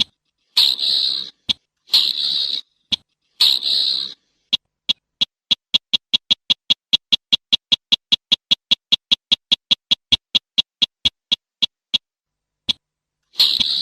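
Slaty-breasted rail calling: three harsh calls close together in the first four seconds, then a long run of sharp ticks that speeds up to about five a second and slows again before stopping about twelve seconds in. Another harsh call begins just before the end.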